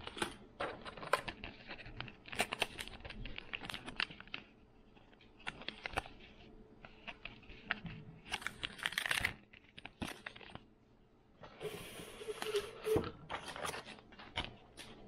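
Fishing lure packaging handled and opened by hand: plastic rustling and clicking in short bursts, with a longer rustle near the end.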